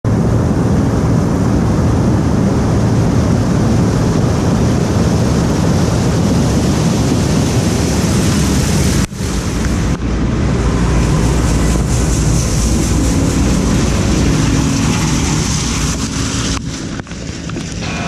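Combine harvester with a corn head running over a camera set low in a corn row: a loud, steady rumble and rush of machinery and snapping stalks, with a brief break about nine seconds in, easing off near the end as it moves away.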